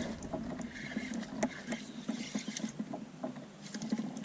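Scattered light knocks and clicks of gear and hands moving against the hull of a canoe, at an irregular pace.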